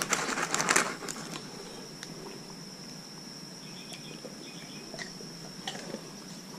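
A dog crunching a crisp banana chip, with loud crackling for about the first second. A steady, high insect drone runs on after it, with a few faint chirps.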